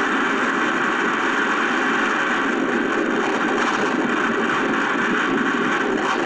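Steady, even rush of strong wind and heavy wind-driven rain.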